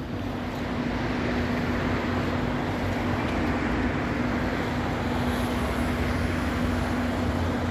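Končar TMK 2200 low-floor tram standing at a stop, its equipment giving a steady low hum over the constant noise of street traffic.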